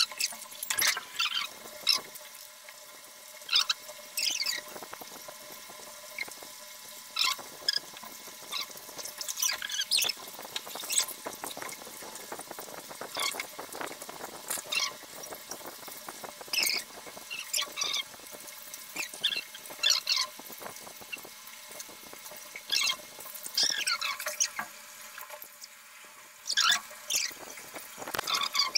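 Water pouring and splashing in a plastic tub as a wet kitten is bathed, with the kitten giving short high-pitched mews again and again.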